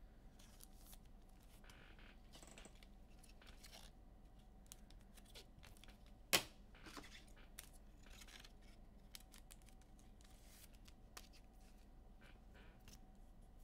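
Faint handling of trading cards and packs: soft rustling and light clicks, with one sharper click about six seconds in.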